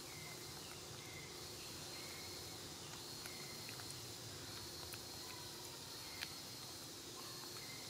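Faint insect drone, a steady high hum, with short high chirps repeating every second or so and one small click about six seconds in.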